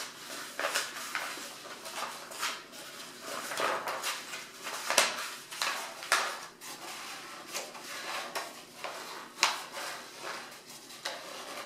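A sheet of paper rustling and crinkling as it is folded and rolled into a funnel by hand, with irregular sharp crackles throughout and a louder one about five seconds in.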